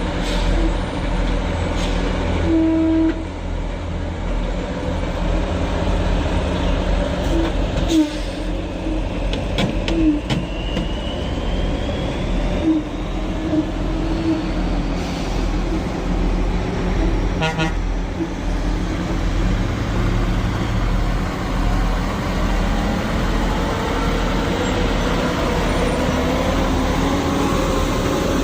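Heavy logging truck's diesel engine running steadily under load, with a few short horn toots and occasional knocks from the truck.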